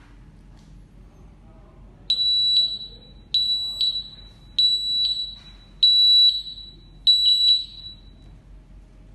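Stack light's electronic buzzer giving five high-pitched beeps, evenly spaced about one and a quarter seconds apart, starting about two seconds in.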